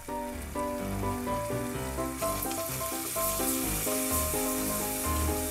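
Background music with a stepping melody and bass line, over the sizzle of sliced garlic and diced ham frying gently in oil in a steel pot. The sizzle grows louder about two seconds in.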